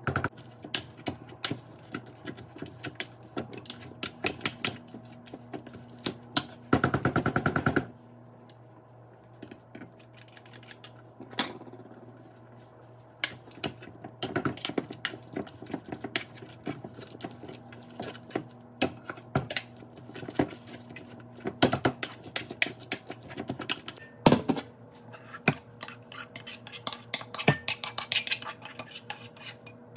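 Kitchen utensils clicking, knocking and scraping against pans and dishes in irregular strokes over a steady low hum. About seven seconds in there is a loud rapid rattle lasting about a second.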